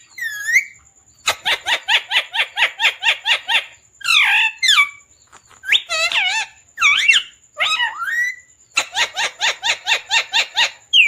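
Parrot calling: two runs of quick repeated chirps, about five a second, with rising and falling whistled calls between them.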